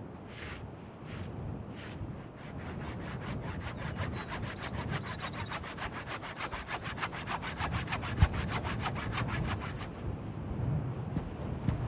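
Hand saw cutting through wood with quick, even back-and-forth strokes that build up a couple of seconds in, pause briefly near the end, then start again.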